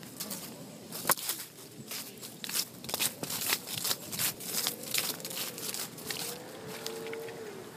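Dry fallen leaves crunching and crackling in irregular bursts, as something moves quickly through them; the crunches die away about six seconds in.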